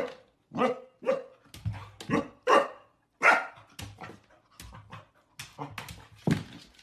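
Golden retriever puppy barking at its own reflection in a mirror: a quick run of about a dozen short barks, roughly two a second, growing softer over the last couple of seconds.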